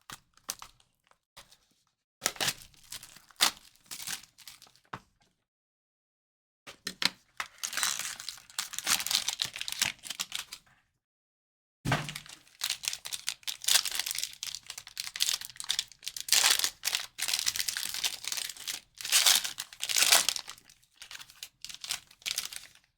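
Plastic wrapping of a hobby box of trading cards being torn open and crinkled, in short rustling bursts at first and then long stretches of continuous crinkling.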